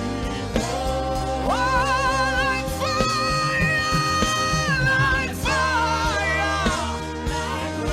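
Gospel worship music: steady held chords underneath a slow melody of long notes with vibrato and gliding pitch changes, with no words sung.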